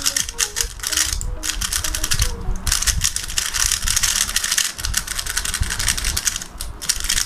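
Stickerless 3x3 speed cube being turned rapidly by hand: a dense, irregular run of quick plastic clicks and clacks as the layers snap round. The cube is freshly lubricated and being turned to break it in.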